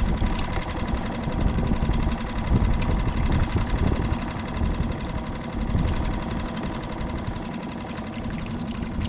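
Small skiff's outboard motor running steadily at low speed.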